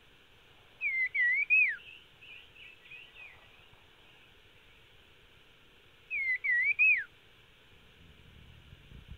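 A bird calling: a short whistled phrase that wavers up and down over about three notes, given twice about five seconds apart, with a few softer chirps after the first.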